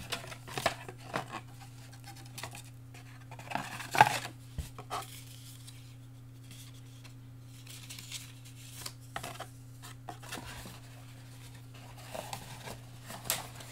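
Scattered knocks, taps and scrapes of a cardboard product box and batting gloves being handled on a tabletop, with one sharper knock about four seconds in, over a steady low hum.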